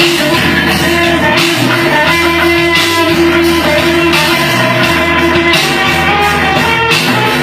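Guitar solo played over a rock backing with bass and steady drum hits, with held notes that change every fraction of a second.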